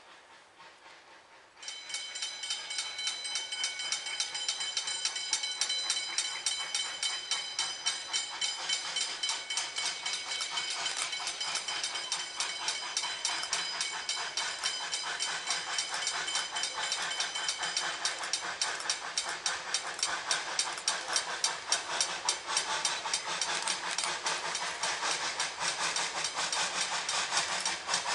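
A level-crossing warning bell starts ringing about two seconds in and keeps ringing with a steady, high ring. Under it an ex-Victorian Railways NA class narrow-gauge steam locomotive approaches, and its chuffing and the hiss of its open cylinder drain cocks grow louder toward the end.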